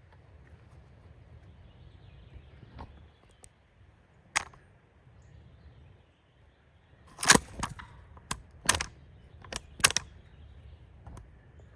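A string of sharp clicks and knocks, one about four seconds in and a cluster of several louder ones between about seven and ten seconds in, over a faint steady outdoor background.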